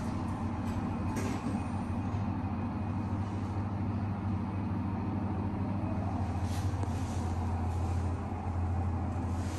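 Passenger lift doors closing, with a click about a second in, then the lift car travelling with a steady low hum.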